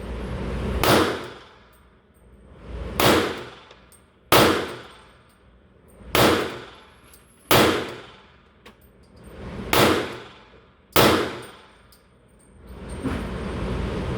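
Glock 23 Gen 5 pistol firing .40 cal in slow fire: seven shots, one to two seconds apart, each ringing off. A steady rumble of background noise rises near the end.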